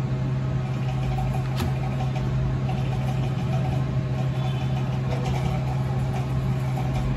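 Steady low hum with an even background hiss, and a single sharp click about one and a half seconds in.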